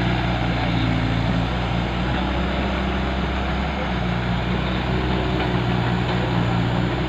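Heavy vehicle's diesel engine running steadily, a low hum under broad mechanical noise, the hum weakening briefly around the middle before returning.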